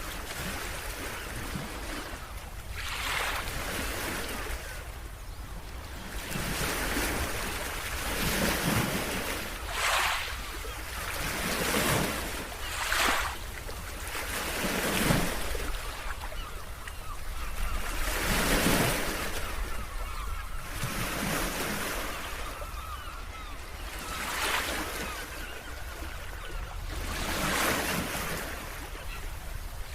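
Ocean surf: waves breaking and washing up the shore every few seconds in a steady cycle, with wind rumbling on the microphone throughout.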